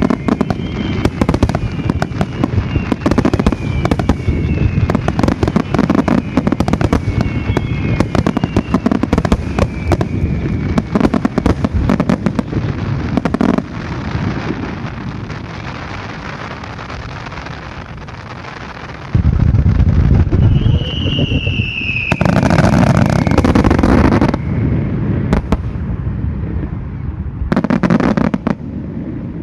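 Aerial fireworks finale: a dense barrage of booms and crackling, with whistling shells giving falling whistles in the first few seconds. Midway it eases to a rumble, then heavy booms return, with one loud falling whistle and more bursts near the end.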